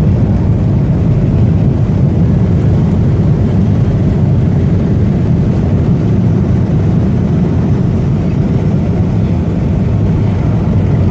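Steady low rumble of a Boeing 737-400's engines and airflow heard inside the passenger cabin, with no single knock or thump standing out.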